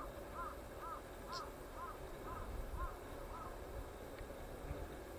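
A bird giving a series of short, evenly spaced calls, about two a second, that stop about three and a half seconds in, with two brief high chirps among them.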